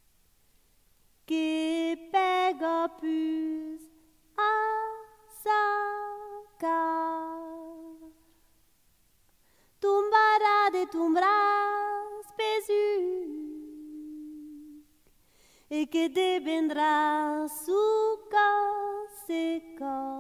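A woman's voice singing unaccompanied, in four phrases of held and gliding notes with short silent pauses between them.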